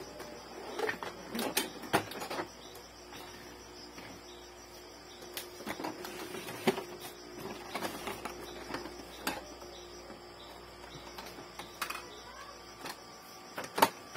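The plastic body of an Epson L3110 inkjet printer being tilted, turned and set back down by hand: scattered knocks, clicks and rattles.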